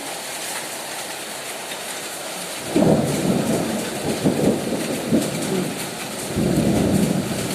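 Hail and heavy rain pelting down in a steady hiss with fine ticks. About three seconds in, a louder, uneven low rumble comes in, swelling again near the end.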